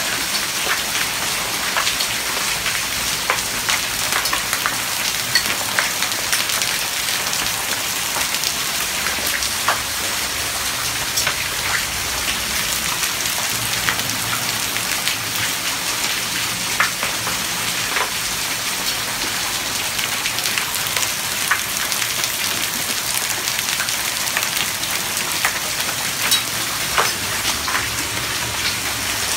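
Hailstorm: small hailstones and rain falling steadily, with a dense scatter of sharp ticks from hailstones striking hard surfaces.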